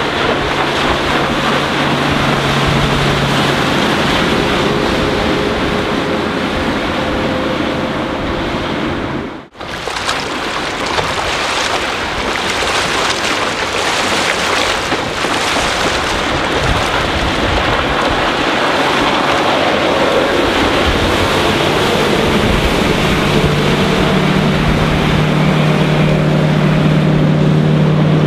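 Four Winns 215 Sundowner sportsboat running at speed on open water, its MerCruiser 4.3-litre V6 MPI sterndrive engine heard as a steady low hum over wind on the microphone and rushing water. The sound cuts out briefly about a third of the way through. The engine grows louder over the last third as the boat comes close.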